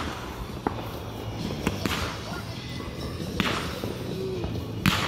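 Consumer aerial fireworks launching and bursting overhead: a series of sharp cracks and pops, some followed by crackling, with the loudest bang near the end.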